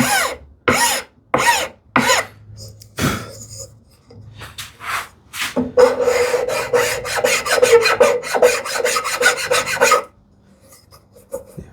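Hand plane taking strokes along a wooden chamfer: about five separate scraping passes in the first three seconds, then, after a short pause, a run of quick short strokes rubbing on the wood that stops near the end.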